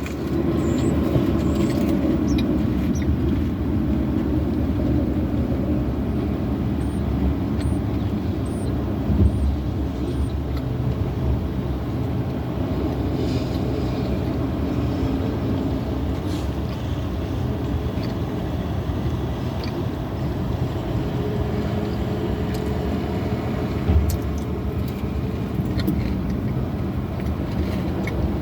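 Steady vehicle rumble and hum heard from inside a parked car, with a couple of brief knocks.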